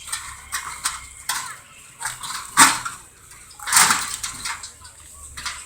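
Scattered metallic clanks and knocks of hand tools and parts as a Ford Model T is assembled, with two louder sharp bangs about two and a half and almost four seconds in.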